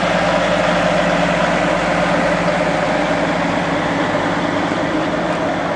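Funkey narrow-gauge diesel locomotive's engine running steadily as the train passes, hauling freight wagons.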